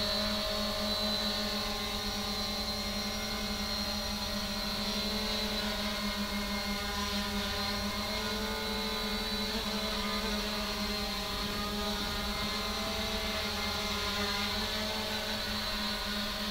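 3DR Iris+ quadcopter's electric motors and propellers running in flight, a steady buzzing hum of several held tones that shift slightly in pitch as the throttle changes.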